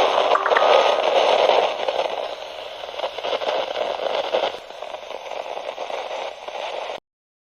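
Radio static hiss, strongest in the midrange, growing quieter in steps and then cutting off abruptly near the end.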